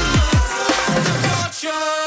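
Electronic background music with deep bass notes sliding down in pitch. The bass drops out briefly about a second and a half in.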